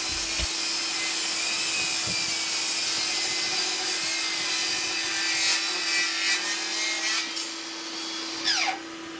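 Milwaukee M18 FUEL 7-1/4-inch sliding compound miter saw running and its blade bevel-cutting through a pressure-treated 2x6, a steady whine over rasping wood. Near the end the whine falls sharply in pitch as the blade spins down after the cut.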